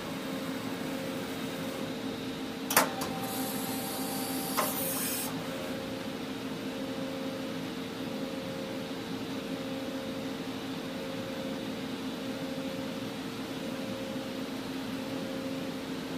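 Doosan Puma 480 XLM CNC lathe running with a steady hum. About three seconds in, a sharp clack and about two seconds of hiss, ended by a smaller clunk, come as the tool turret indexes to a new tool station.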